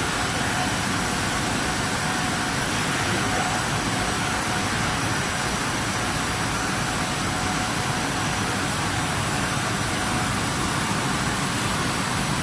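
Steady machine noise from a micro spray tube production line with its laser perforating machine running: an even, unbroken hiss with a few faint high whines on top.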